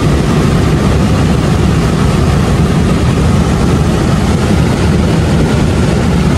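A fast mountain river rushing: a loud, steady, unbroken noise, deepest in the low end.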